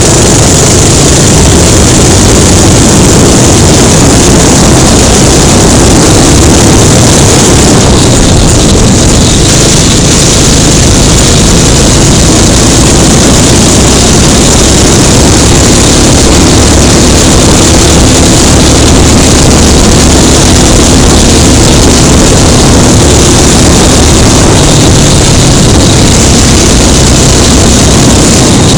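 Kart engine running flat out under way, close to the microphone, loud and overloaded without a break.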